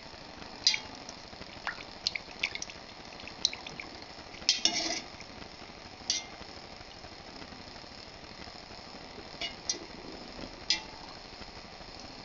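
A metal spiral whisk stirring milk in a stainless steel pot, clinking against the pot's sides and bottom in irregular sharp clicks, with a longer rattle near the middle.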